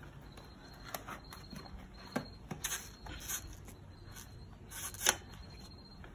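Faint rubbing and scraping with scattered light clicks as an old bicycle tire and inner tube are handled and worked off the wheel rim.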